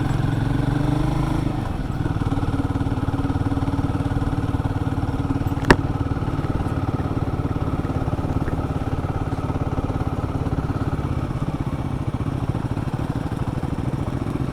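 Royal Enfield Guerrilla 450's single-cylinder engine running steadily under way; the revs drop about two seconds in, then hold steady. A single sharp click about six seconds in.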